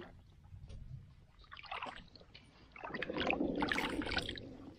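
Water splashing and sloshing as plums are washed by hand in a bucket: a few short splashes, then busier splashing from about three seconds in.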